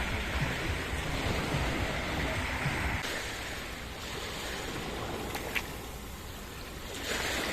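Sea surf washing onto a beach, swelling again near the end, with wind buffeting the microphone during the first three seconds and a brief click about five and a half seconds in.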